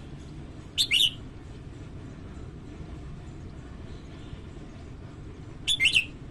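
Red-whiskered bulbul singing two short, loud, high-pitched phrases, one about a second in and one near the end, over a steady low background rumble.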